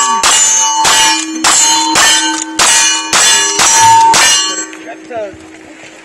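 Lever-action rifle fired rapidly at steel targets, about eight shots roughly two a second, each shot followed by the ringing clang of a steel plate being hit. The string of fire stops a little over a second before the end.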